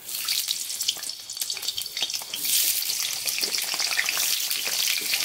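Cut potato pieces dropped into hot oil in a metal kadai, sizzling and crackling. The sizzle starts suddenly as the first piece goes in and grows fuller after about two and a half seconds as more pieces are added.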